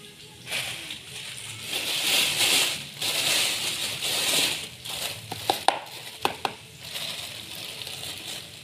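A plastic bag crinkling and rustling as it is handled, loudest in stretches during the first half, then a few sharp clicks and taps about five to six and a half seconds in.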